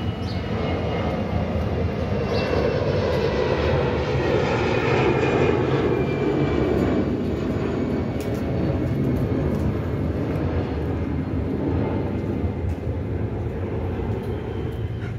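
A steady engine rumble, swelling about five seconds in and easing off after seven.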